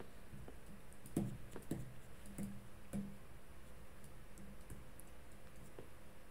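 A few faint taps and clicks of a stylus on a pen display while sketching, mostly in the first half, over a low steady hum.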